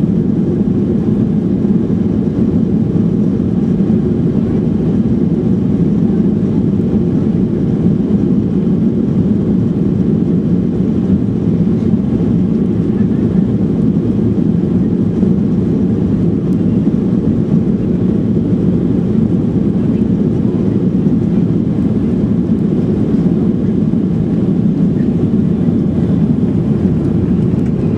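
Steady cabin drone inside a Boeing 737-800 in flight: the CFM56-7B engines and the airflow over the fuselage, heard from a window seat as an even low noise.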